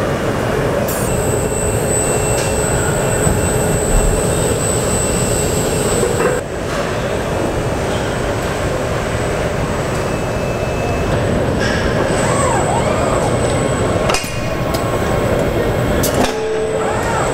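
Car assembly plant machinery running: a steady mechanical din with a thin high whine over it. The din changes abruptly twice, about six and fourteen seconds in.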